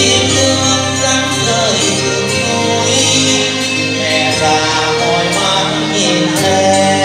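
A song performed live over a backing track: steady music with singing.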